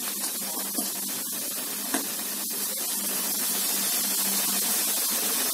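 Mushrooms and onions sizzling in hot oil in a frying pan, a steady hiss that grows a little louder as water is poured into the hot pan.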